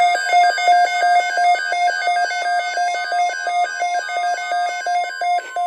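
NOAA Weather Radio tornado watch alert: an electronic alarm switching quickly back and forth between a higher and a lower pitch, about four times a second, with a faint steady tone beneath it.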